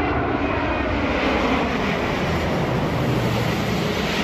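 Steady rush of spraying water as a muddy toy is washed.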